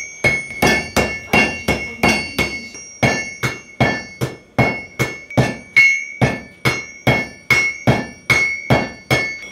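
Blacksmith's hammer striking a red-hot iron bar on an anvil in a steady rhythm of about two to three blows a second. Each blow leaves a bright metallic ring.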